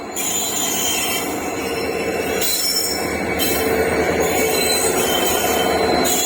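Train passing on the track: a steady rolling noise with a thin high-pitched squeal over it.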